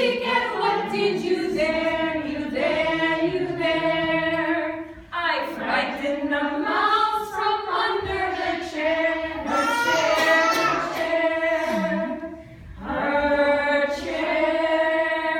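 A group of voices, mostly women's, singing a children's song together without instruments, in held phrases with short breaks between them.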